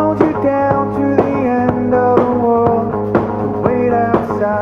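Upbeat rock music with guitar and drum kit, on a steady beat of about two drum hits a second.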